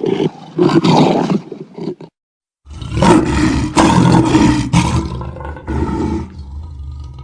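Lion roaring loudly in a run of heavy roars, broken by a brief cut to silence about two seconds in, then a second long run of roars that dies away near the end.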